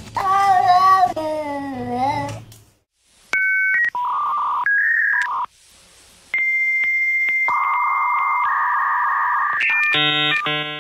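A short cry sliding down in pitch, then a run of electronic telephone-line tones like a dial-up modem connecting: stepped beeps, a steady high tone held for about two seconds, hissing scrambled tones, and a buzzing chord near the end.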